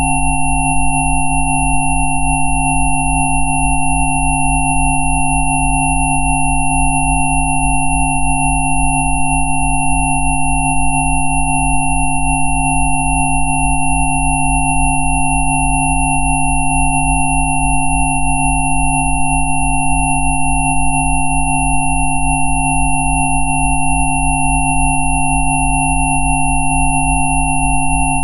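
Synthesised 'Rife frequency' sine tones: several pure electronic tones at different pitches, from a deep hum to a thin high whistle, held perfectly steady together. The lowest tone pulses quickly and evenly.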